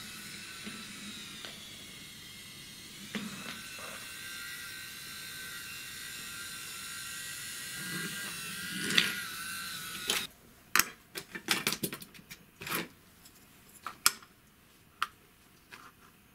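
Battery-powered wooden-railway toy train running along wooden track, its small electric motor whining steadily, with a few soft knocks over the rail joints. About ten seconds in the whine stops and gives way to a run of sharp clicks and taps as 3D-printed plastic track parts are handled and set down on a work mat.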